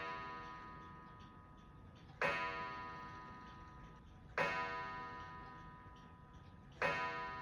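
Background music: a bell-like note struck three times, about every two and a half seconds, each one ringing out and fading.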